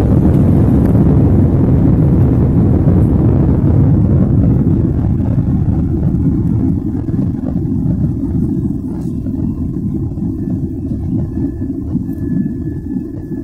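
Boeing 767 jet engines at takeoff thrust, heard inside the cabin near the wing during the initial climb: a loud, deep, steady rumble. The hissing upper part fades a few seconds in and the overall level eases gradually. A faint steady whine comes in during the second half.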